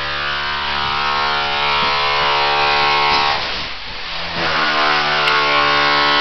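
A machine's electric motor running steadily with a hum of many even tones; about four seconds in it dips briefly and its pitch shifts, then it runs steadily again.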